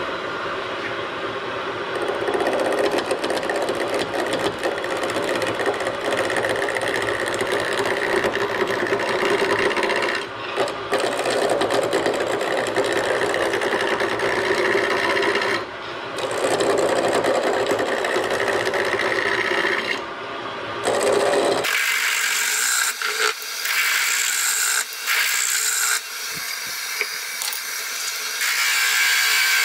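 Wood lathe spinning a 2x4 blank while a turning gouge cuts it round: a steady rough hissing cut over a low hum, with brief breaks where the tool lifts off. About 22 seconds in the low hum drops out, leaving a thinner, higher scraping on the turning wood.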